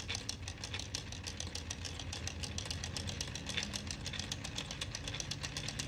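Lego Technic 858 Auto Engines model, a three-piston plastic toy engine, being turned over: its plastic gears, pistons and fan make a fast, even run of clicks.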